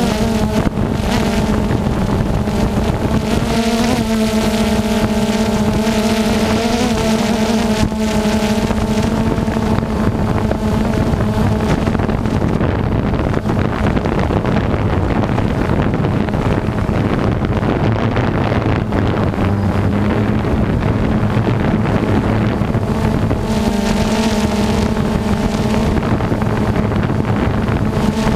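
Engine of harvest machinery running steadily under a continuous noisy rush, with wind on the microphone. The engine's hum fades back in the middle and returns strongly near the end.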